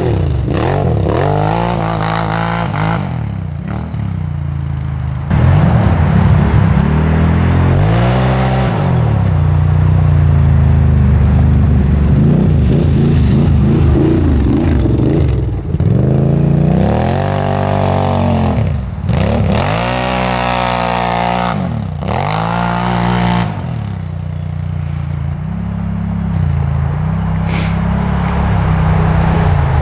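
Can-Am XMR 1000 ATV's V-twin engine being ridden hard, revving up and down in repeated surges with its pitch rising and falling between steadier stretches.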